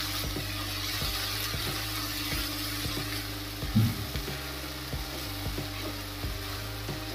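Green coriander-mint chutney paste sizzling steadily in hot oil in a stainless steel kadai over a high gas flame. A spatula stirs it, scraping the pan over and over, with one louder knock about four seconds in.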